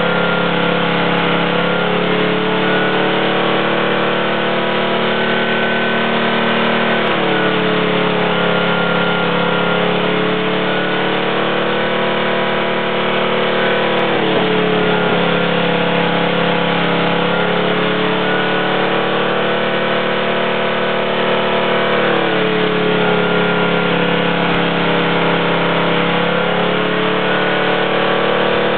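8 hp Briggs and Stratton single-cylinder engine running steadily under load, its carburetor force-fed compressed air at about 10–15 psi through a bolt-on plate as a makeshift turbo. Its pitch dips and recovers a few times, roughly every seven seconds.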